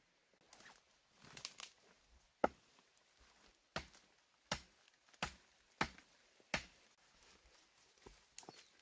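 Rustling, then a run of six sharp knocks about two-thirds of a second apart, like chopping or striking, the first the loudest.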